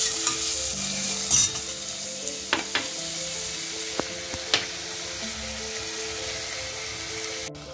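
Onions, tomatoes and ginger-garlic paste sizzling in hot oil in a stainless steel pressure cooker, stirred with a steel spoon that scrapes and clinks against the pot several times.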